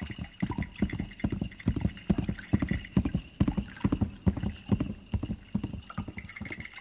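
Clip-clop of horse hoofbeats: a quick, uneven trotting rhythm of short hollow knocks, several a second, loudest in the middle.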